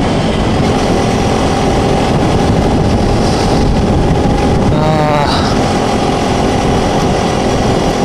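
Sport motorcycle riding along at steady road speed: engine running under the rush of wind over the on-board microphone. A brief wavering pitch glide cuts in about five seconds in.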